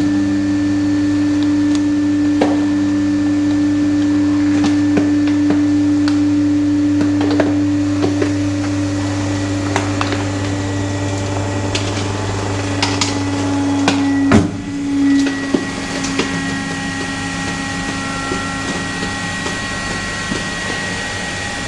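Fercell vertical cardboard baler running an automatic compaction cycle: the hydraulic power pack hums steadily as the platen presses down, with occasional sharp cracks. About two-thirds of the way through, a sudden knock marks the platen reversing, and a changed, slightly quieter hum carries on as it returns up.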